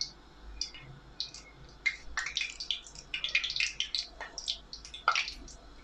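Stuffed courgette pieces frying in hot oil: irregular crackling and spitting of the oil, with a few sharper clicks of the metal tongs against the pan.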